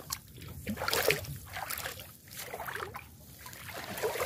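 Shallow water sloshing and splashing in irregular bursts, as someone wades through a flooded rice-field ditch feeling for fish.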